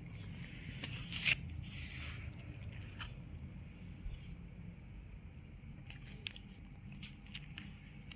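Light handling noises over a steady low background hum: a sharp click about a second in, a short rustle, then a few light clicks near the end.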